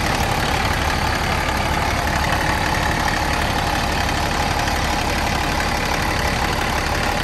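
International dump truck's diesel engine, which the owner believes is a DT466 with mechanical fuel injection, idling steadily just after its first start following years of sitting. It sounds like it's running really good.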